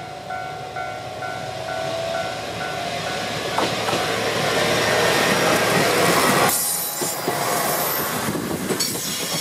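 Moka Railway diesel railcar approaching and passing close by: its engine and wheel noise build up to a peak about five to six seconds in, with wheels clattering over the rail joints as it goes past. A ringing tone repeating about three times a second sounds under it in the first two seconds.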